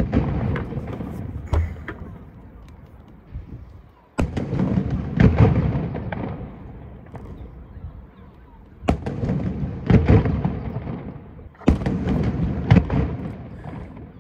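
Daytime fireworks going off: four loud booms, each trailing off in a low rumbling echo over a couple of seconds, with a few sharper cracks in between.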